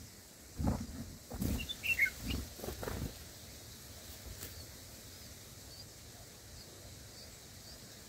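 Red-whiskered bulbul moving at its nest: a few low rustling thumps of wings and leaves over the first three seconds, with short chirps about two seconds in. After that come only faint high cheeps from the begging nestlings.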